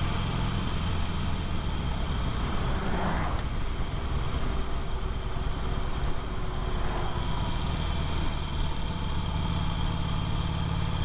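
Harley-Davidson Sportster 883's air-cooled V-twin running steadily under a rider cruising on the street, its note shifting about nine seconds in.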